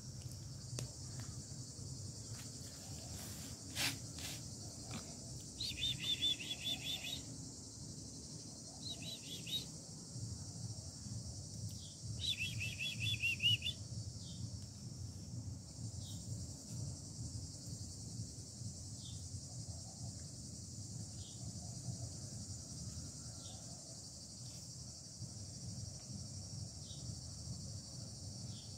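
Steady high-pitched insect chorus, with a songbird singing three short trilled phrases in the first half, and short single chirps repeated every second or so through the second half. One sharp click about four seconds in.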